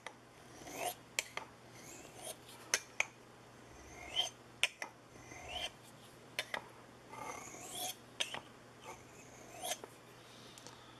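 Steel knife blade drawn across a natural serpentine sharpening stone in a series of short, irregular scraping strokes: final honing of the edge.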